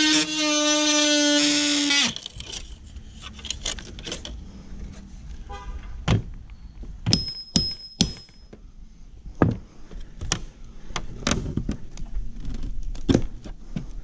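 A held musical note ends about two seconds in. After it come irregular sharp knocks, clicks and rattles of metal hand tools working on a camper's corrugated aluminium siding and its window frame.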